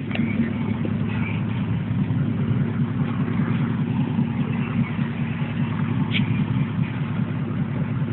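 A car engine running steadily with an even low rumble.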